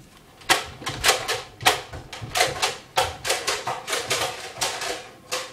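A rapid, irregular string of sharp clacks and knocks, about fifteen in four and a half seconds, starting about half a second in.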